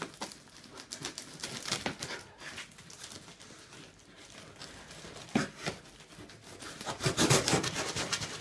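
A knife cutting and sawing through packing tape and corrugated cardboard, a run of short scraping strokes that grow louder near the end.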